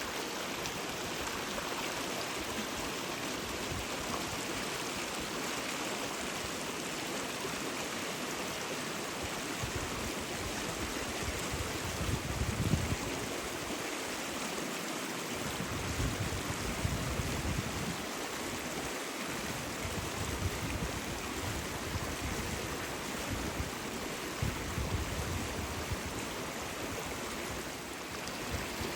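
River water flowing over stones: a steady rushing and babbling. A low rumble comes and goes in the middle.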